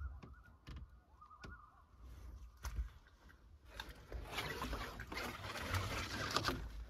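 Footsteps and dry brush and twigs crackling and snapping as someone pushes through leafless undergrowth on foot, the crackling getting busier about four seconds in. A faint steady high tone sounds in the first two seconds.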